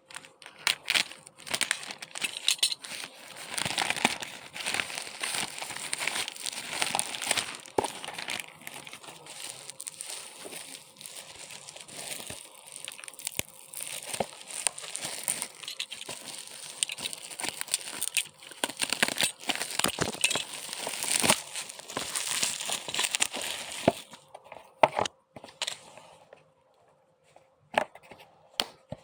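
Packaging crinkling and tearing as a parcel is opened by hand, a dense run of rustles and crackles that thins out about 24 seconds in to a few scattered clicks and taps.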